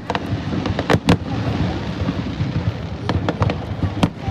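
Fireworks bursting overhead: a rapid run of sharp bangs and crackles, with two loudest bursts about a second in and near the end, over a continuous low rumble of further explosions.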